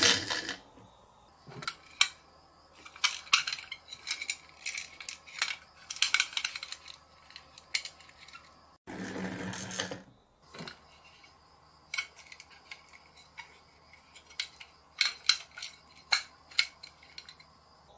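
Scattered light clicks and metallic clinks from small toy trucks being handled, including the hinged rear door of a tin box truck being opened and shut. About nine seconds in comes a short stretch of steady rolling noise as a truck is pushed along the tabletop.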